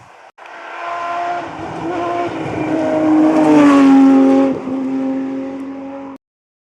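A rally car's engine at full throttle, approaching and passing, loudest about four seconds in. There is a brief dip just after that, as for a gear change, and the sound cuts off abruptly near the end.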